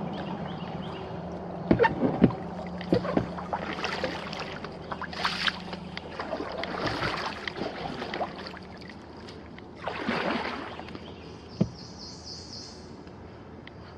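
Kayak paddle strokes splashing and dripping in the water, with a few sharp knocks of the paddle against the hull about two seconds in. He is paddling hard against a strong current.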